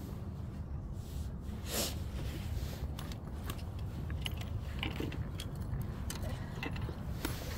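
Scattered light clicks and clinks from stepping about on loose rocks and handling fishing rods and tackle, over a steady low rumble.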